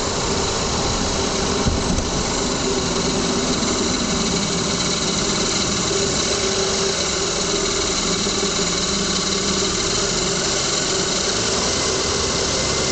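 A 2000 Lexus ES300's V6 engine running steadily, heard close up from inside the engine bay. The car has a long-standing rattling or ticking noise from beneath, loudest when warm and at low speeds, which the owner has not traced; a checked heat shield is not the cause.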